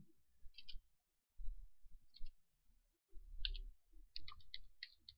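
Computer keyboard keystrokes: a few scattered key taps, then a quicker run of about six near the end, with a faint low rumble under some of them.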